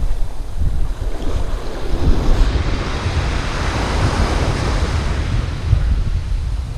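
Ocean surf breaking on a sandy beach: a wave crashes and washes up the shore, its hiss swelling about two seconds in and fading near the end, over low wind noise on the microphone.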